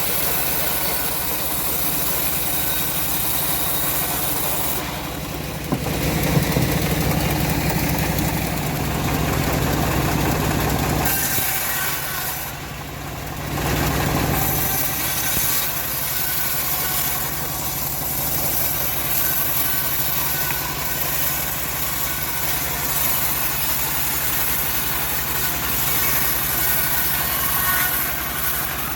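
Homemade bandsaw sawmill running steadily while sawing teak. The sound grows louder about six seconds in and dips briefly around twelve seconds.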